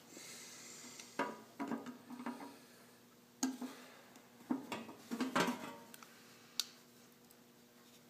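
Clinks, knocks and scrapes of a small metal carburetor and a screwdriver against an enamelled steel broiler pan as the carburetor is handled and a screw is worked. The clatter comes in several short clusters, with one sharp knock near the end.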